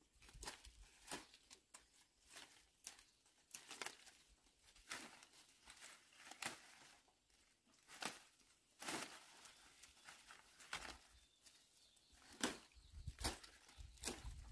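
Faint rustling of leafy undergrowth and snapping of plant stems as greens are picked by hand, in irregular short crackles.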